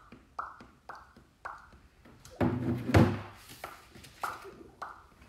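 Lip pops made with the mouth, short and evenly spaced at about two a second, broken about two and a half seconds in by rustling and a thump as a laminated card and a plastic bag of props are handled.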